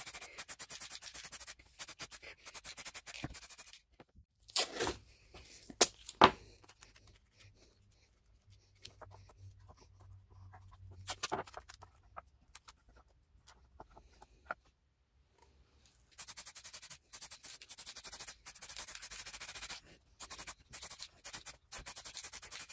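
Aerosol spray paint can hissing in rapid short bursts as metal lamp parts are coated. The spraying stops after a few seconds, giving way to a few sharp knocks and light handling of the metal parts on a wooden board. Near the end the spraying starts again in quick bursts.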